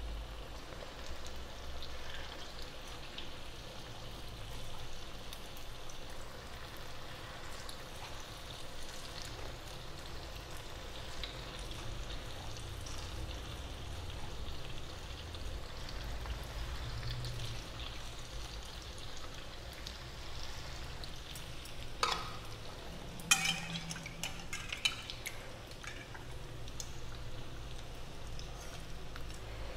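Batter fritters (vade) deep-frying in hot oil in a kadai, a steady sizzle of bubbling oil. A few sharp knocks come about two-thirds of the way through.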